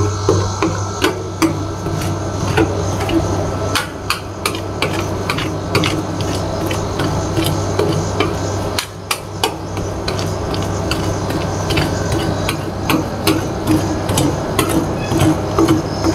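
Metal spatulas chopping, tapping and scraping chocolate ice cream on a stainless-steel cold plate while spreading it thin for rolled ice cream. The chopping makes an irregular run of sharp clicks and knocks over a steady low hum.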